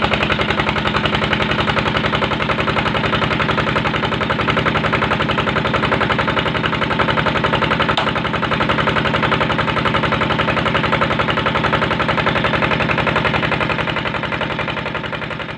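Brick-making machine (molen) running with a rapid, even, rattling beat, fading out near the end.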